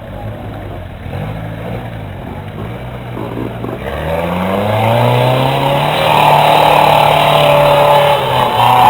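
Off-road 4x4's engine revving under load, rising in pitch and growing louder from about four seconds in, then held at high revs.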